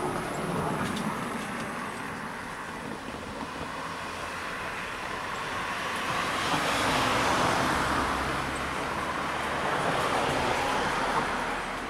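Cars driving across the level crossing close by, their engine and tyre noise swelling as each one passes: the loudest about seven seconds in, a second one about ten to eleven seconds in.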